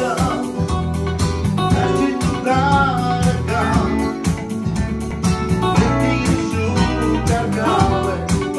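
Live music played together: an electronic keyboard and a strummed acoustic guitar over a steady beat, with a man singing.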